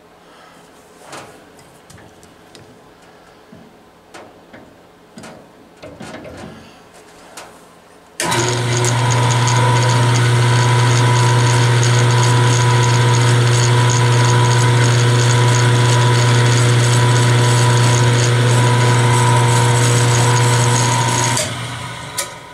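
Drill press starting abruptly about eight seconds in and running steadily with a low hum and a steady whine, while a spot drill marks the hole position in an aluminum block. The motor winds down about a second before the end. Before it starts there are a few light clicks and knocks.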